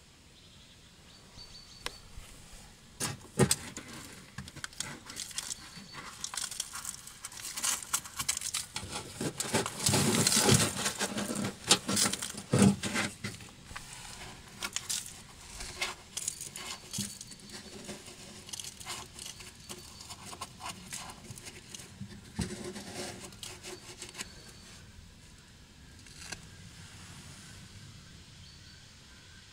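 Packed dirt, dead leaves and rust flakes being scraped and pulled by a gloved hand out of the pocket behind a Škoda Octavia's front wheel-arch liner: irregular scraping, crumbling and rustling with sharp clicks and knocks of plastic and metal, with a louder flurry near the middle. This trapped, damp debris is what makes the front fenders rust through.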